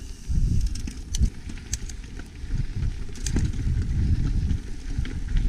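Wind buffeting the microphone of a GoPro on a moving mountain bike, a gusty low rumble, with a few sharp clicks and rattles from the bike, loudest about three seconds in.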